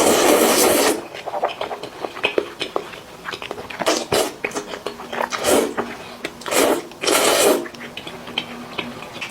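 Close-miked eating sounds: a person biting and chewing chicken, in irregular wet, crackling bursts with the loudest right at the start and others about four, five and a half, and seven seconds in.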